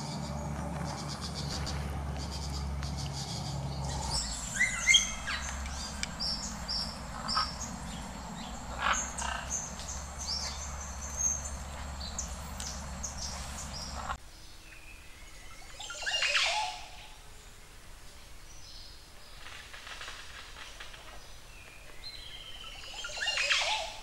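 Birds chirping and calling in tropical forest. In the second half a Montezuma oropendola gives its loud liquid, gurgling song twice, once a couple of seconds after the cut and again right at the end.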